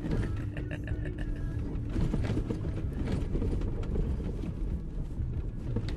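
Jeep Wrangler driving slowly along a rough dirt trail, heard from inside the cabin: a steady low engine and tyre rumble with frequent small knocks and rattles as it rolls over the uneven ground.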